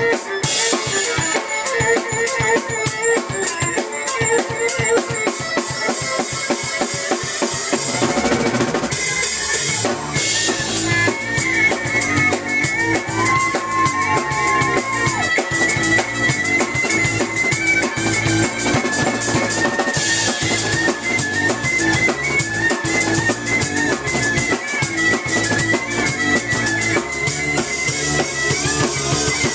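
Live instrumental music from a drum kit, keyboard and violin trio. Fast, dense drumming builds up and, about eight seconds in, drops into a heavier groove with a deep bass pattern under a high melody line.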